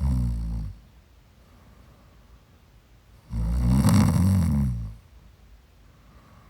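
A sleeping person snoring: a short snore right at the start, then a longer, louder one about three and a half seconds later, each a low buzzing drone.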